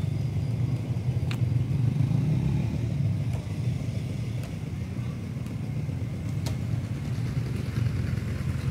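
A 250 cc ATV buggy engine running at a steady idle, a low even sound with no revving.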